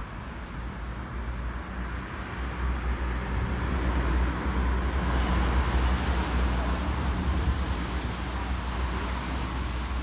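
Road traffic: a car passing, growing louder to a peak midway and fading again, over a steady low rumble.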